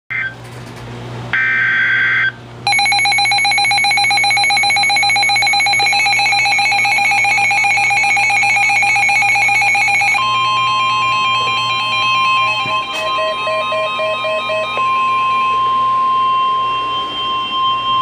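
Midland NOAA weather radios going off for a severe thunderstorm warning: a short screechy burst of digital alert header tones, then a rapidly pulsing electronic alarm beep from about two and a half seconds in. About ten seconds in, the beeping gives way to the steady 1050 Hz weather-radio warning tone, with more pulsing beeps over it for a few more seconds.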